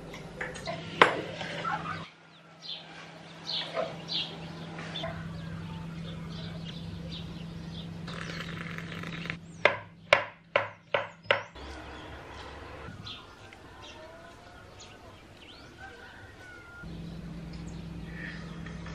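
A kitchen knife chopping papaya on a wooden cutting board: a run of about six sharp strokes, roughly three a second, about halfway through. Birds chirp faintly around it over a low steady hum.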